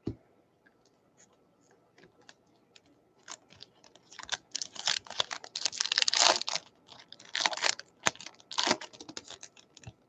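Baseball card pack being torn open and its wrapper crinkled: a scatter of light clicks and rustles at first, then dense crinkling from about four seconds in, with a second burst near the end.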